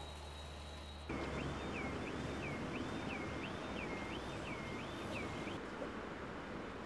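Emergency vehicle siren wailing, its pitch sweeping up and down about twice a second over a steady rush of street noise. It comes in suddenly about a second in and stops about five and a half seconds in.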